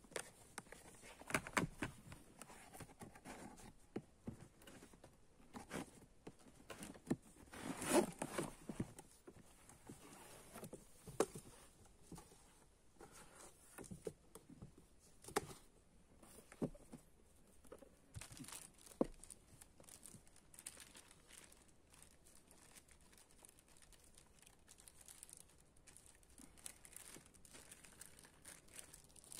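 Cardboard box and packaging being handled: irregular rustles, scrapes and taps of cardboard with crinkling of wrapping, loudest at about a second and a half and again around eight seconds in.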